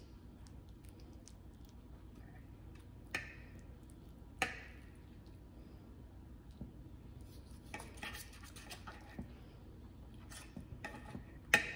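Steel knife and fork scraping and clinking on a ceramic plate while cutting meat. There are sharp clinks about three and four and a half seconds in and one near the end, with bursts of small scrapes and ticks in between.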